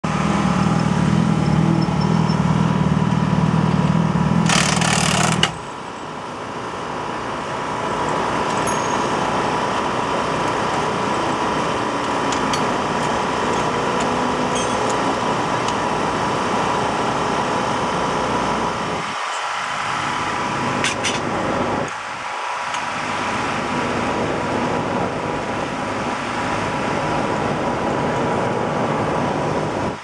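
Sportbike engine running as the bike rolls in, cut off about five seconds in. After that, a steady background of engine noise, broken by a few short sharp clicks and knocks of tools during a pit-stop rear wheel change.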